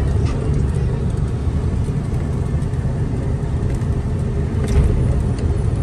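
Steady low rumble of a goods truck's diesel engine, with tyre noise on a wet road, heard from inside the cab while cruising.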